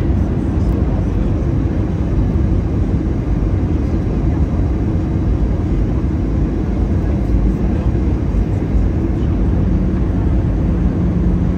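Steady cabin noise of an airliner, its engines and the airflow heard from inside the passenger cabin. The noise is loud and mostly deep, and a low steady hum comes up near the end.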